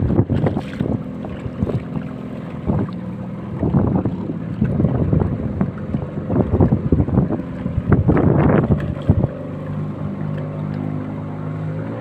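Outboard motor of a small speedboat running steadily under way, with gusty wind buffeting the microphone; the gusts ease in the last few seconds and the engine comes through more clearly.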